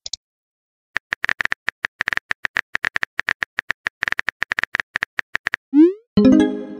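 Texting-app sound effects: a rapid run of keyboard typing clicks for about four and a half seconds, then a quick rising swoosh and a bright chiming pop as a message is sent.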